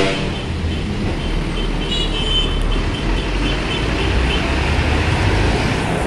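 Diesel engine of a large intercity bus pulling through the junction and passing close, a steady low rumble that grows louder as it nears, over general road traffic.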